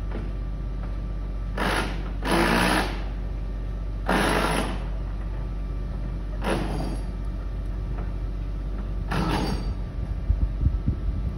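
Construction noise: a steady low machine hum, broken every couple of seconds by a short harsh burst, with a run of low knocks near the end.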